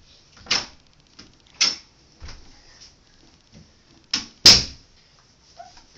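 About five short, sharp knocks and rustles with quiet between them; the loudest comes about four and a half seconds in.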